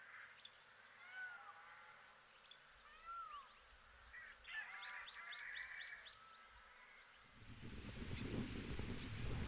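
Whiskered tern giving short, harsh calls several times, a quick cluster about four and a half to five and a half seconds in, over a steady high insect drone. Low wind rumble on the microphone comes in from about seven seconds in.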